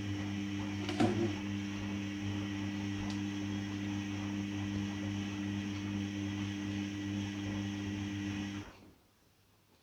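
Hoover Dynamic washing machine humming steadily over a hiss of water during its rinse, with a single clunk about a second in. The hum cuts off abruptly near the end.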